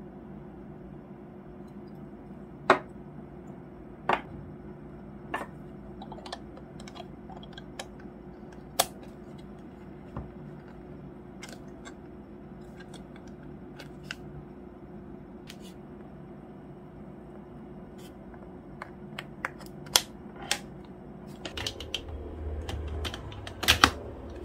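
Hard plastic clicks and taps of a charger adapter and its plug being handled, the small EU plug taken off and a larger Korean plug fitted, a click every second or two. Near the end, louder rustling and a few sharp knocks as the plug is pushed into a wall socket.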